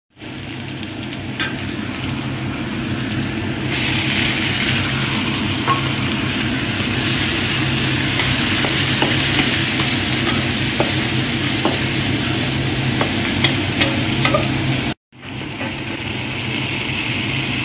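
Food sizzling in hot oil in a stainless steel wok while being stirred with a wooden spatula, over a steady low hum. The sizzling grows louder about four seconds in. The sound cuts out for about a second near the end, then carries on.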